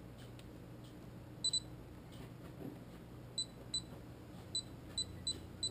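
Futaba T10CAP radio-control transmitter giving short high key-press beeps as its menu buttons are worked: a quick double beep about a second and a half in, then six single beeps spaced a third to half a second apart near the end.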